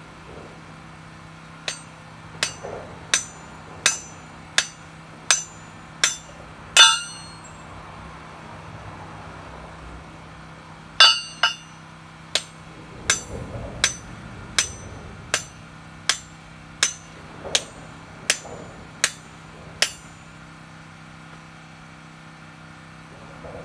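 Hand hammer striking a steel plate bolted to concrete, each blow a sharp metallic clank with a short ring, about one every three-quarters of a second. A run of eight blows is followed by a pause of about four seconds, then about thirteen more.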